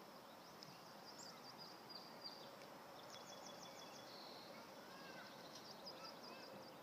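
Faint high chirps and calls of small songbirds over a steady outdoor hiss, with two quick runs of high notes, about three seconds in and again near the end.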